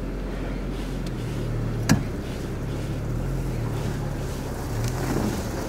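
Car engine running under a hood-mounted camera: a steady low drone whose pitch steps up and down a little as the car drives. One sharp click about two seconds in.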